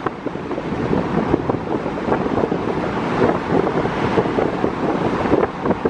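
Wind rushing and buffeting over the microphone in the open cabin of a Jaguar XJS convertible cruising at highway speed with the top down, over steady road noise. The noise flutters unevenly, with no distinct engine note.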